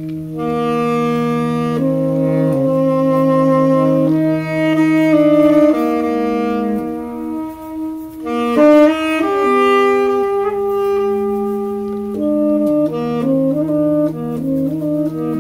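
Saxophone trio playing long, overlapping held notes that shift slowly from chord to chord over a low note sustained beneath, with a brief louder flurry of quick notes about eight to nine seconds in.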